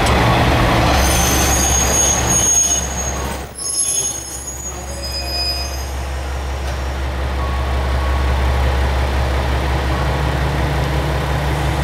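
KiHa 120 diesel railcar's brakes squealing high-pitched as it comes to a stop in the first few seconds, then its diesel engine idling with a steady low drone.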